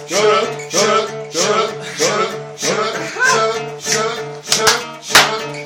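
Backing music for a freestyle rap, a beat with steady sustained low notes, with a voice over it in short rhythmic phrases. There are two sharp hits near the end.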